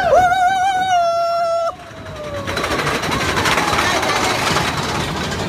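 A rider's long held scream, wavering in pitch, cuts off sharply after under two seconds. Then the Big Thunder Mountain Railroad mine-train roller coaster runs on along its track.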